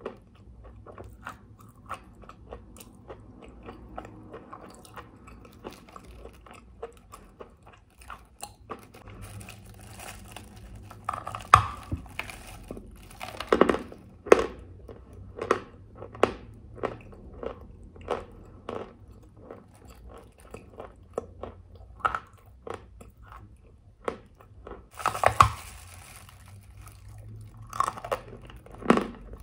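Chalk being bitten and chewed close to the microphone: a continuous run of sharp, dry crunches at uneven spacing, with louder bursts of crunching in the middle and near the end.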